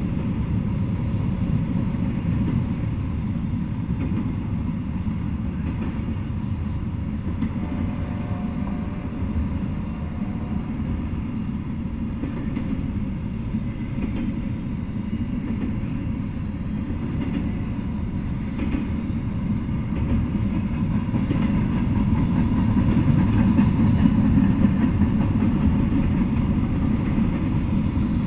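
Double-stack intermodal freight train rolling past: the well cars' wheels on the rails make a steady low rumble, getting a little louder about three quarters of the way through.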